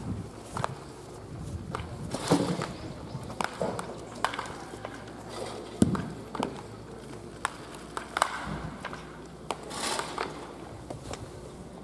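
Bats cracking against baseballs during tee-batting practice: a sharp crack every second or so at irregular intervals, the loudest about six seconds in.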